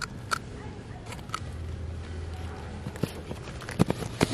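Sharp clicks and taps of hen's eggshells being cracked and handled over a metal bowl of flour, a few scattered and then a cluster of louder ones near the end.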